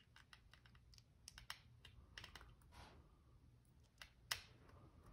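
Faint, irregular small clicks and ticks of steel broadhead parts being handled and fitted together by hand as the broadhead is reassembled and its tiny Torx T6 screw is put back in, with one sharper click about four seconds in.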